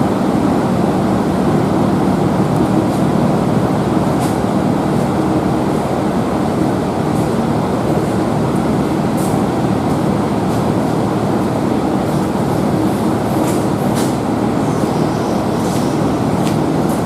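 Steady, loud mechanical running noise from a machine or power tool, with a few faint clicks.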